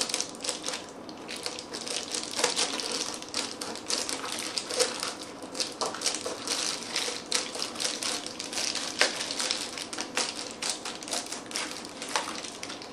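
Scissors snipping through a sheet of foil-faced bubble insulation in many short, irregular cuts, with the foil crinkling as the sheet is handled.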